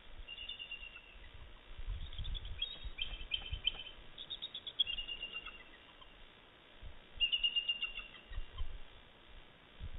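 Bald eagles calling: several bursts of rapid, high chittering notes, each burst lasting a second or two. A low rumble of wind on the nest-camera microphone runs under them.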